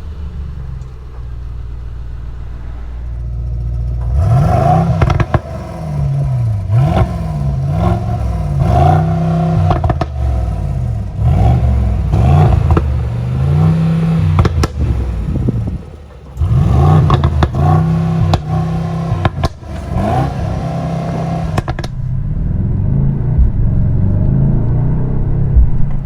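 Mercedes-AMG GLS 63's 4.0-litre twin-turbo V8 with its exhaust valves open in Sport Plus mode. It idles just after start-up, then is revved over and over with sharp crackles between the revs from about four seconds in until a few seconds before the end, and settles back to idle.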